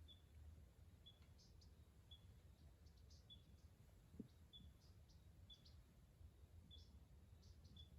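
Near silence, with faint short high chirps repeating about once a second.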